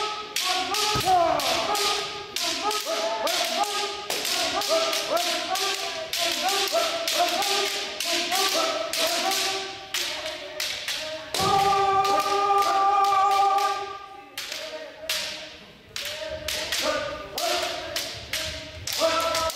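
Bamboo shinai clacking against armour and against each other, many sharp strikes in quick succession from several pairs at once. Over them come drawn-out kiai shouts, one held steadily for a couple of seconds about halfway through.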